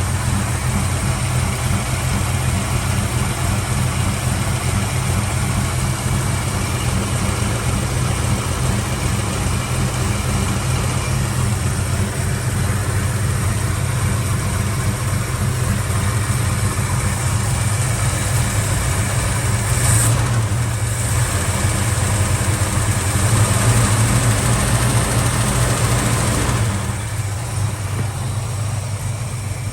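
Valiant VH Charger's engine idling steadily. It runs a little louder for several seconds past the middle, then eases off near the end.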